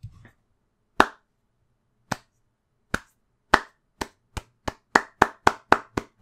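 A slow clap from one pair of hands: single claps about a second apart at first, speeding up to about four a second near the end.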